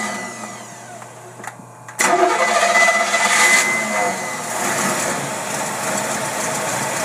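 Engine fed by a Holley marine carburetor being started on a test stand: after a short lull it suddenly fires about two seconds in, then settles into running. It runs badly and too rich, the carburetor flooding over, which the tester takes for something blown out inside the carb.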